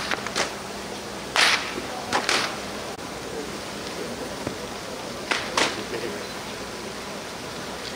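Big bonfire of a burning wooden king boat and heaped joss paper: a steady rushing noise with about five sharp cracks or whooshes, two close together between one and two and a half seconds in and another pair a little past five seconds.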